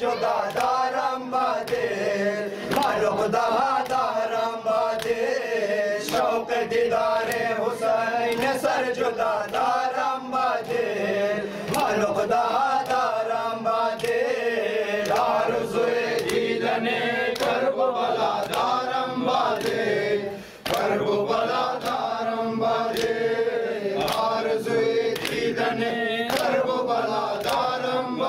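Men's voices chanting an Ashura noha (mourning lament), with steady rhythmic slaps of open palms on bare chests (matam) keeping the beat. The chant breaks off briefly about two-thirds of the way through.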